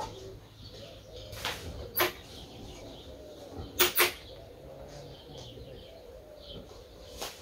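Handling noises from planting pepper seedlings by hand: a few short, sharp crackles or clicks, the loudest a pair close together about four seconds in.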